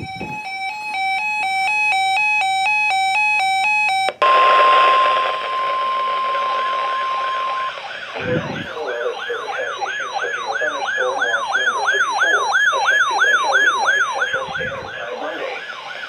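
Weather radio alerts: an alternating two-note electronic alert beep for about four seconds, then the steady 1050 Hz NOAA Weather Radio warning alarm tone for about three and a half seconds, then the Reecom weather alert radio's warbling electronic siren, rising and falling about three times a second. A few faint handling thumps.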